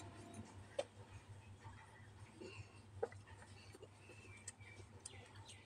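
Quiet eating sounds: a couple of sharp clicks, about a second in and again about three seconds in, as fingers work rice against a steel plate, over a faint low background.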